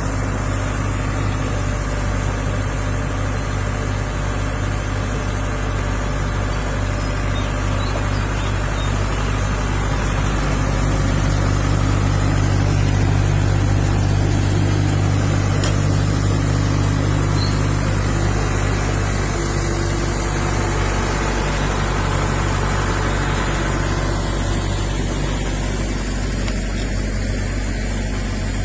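Caterpillar E120B excavator's diesel engine running steadily at low speed, growing a little louder for a few seconds in the middle.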